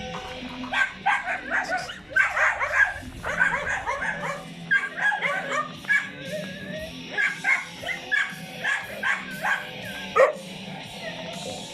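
Dogs barking and yipping in quick, overlapping bursts throughout, over a steady background tone.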